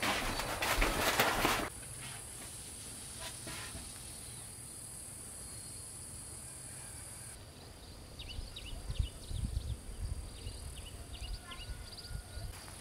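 Clear plastic sheeting rustling and crinkling for the first couple of seconds, then a steady high insect drone that stops about seven seconds in. Later, short high chirps come and go over low rumbling.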